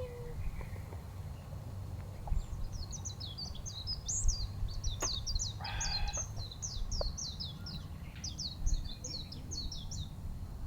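A bird singing a long, rapid run of short, high chirping notes that starts about two seconds in and stops near the end, over a steady low rumble.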